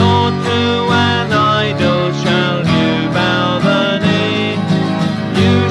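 Music: a country-style song with acoustic guitar.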